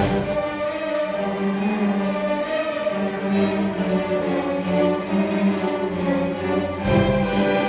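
Background orchestral music with long held notes, growing fuller and heavier near the end.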